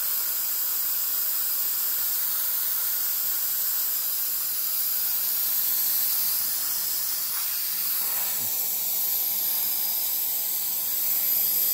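Hypertherm Powermax45 XP air plasma torch cutting expanded steel mesh over a water table: a steady, high hiss.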